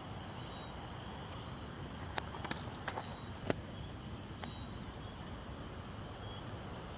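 Night insect chorus: a steady, continuous high-pitched trilling, with a few sharp clicks or taps between about two and four seconds in.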